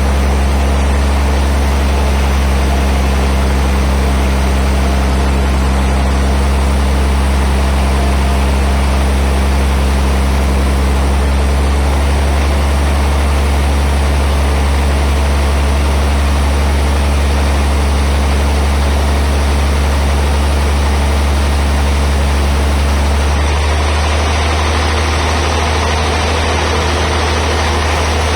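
Heavy sawmill machinery running steadily: a loud, even low drone with a dense mechanical din above it. Its low tones shift slightly near the end.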